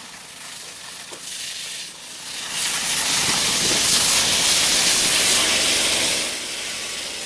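High-pressure water jet from a Panther Model H1 hydro excavation head blasting soil away from a buried pipe, heard as a steady hiss of spray. It grows much louder about two and a half seconds in and eases off again about six seconds in.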